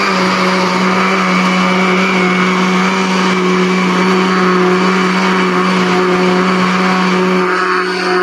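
Electric countertop blender running steadily with a constant motor hum, churning a full jug of thin yogurt and gram-flour batter.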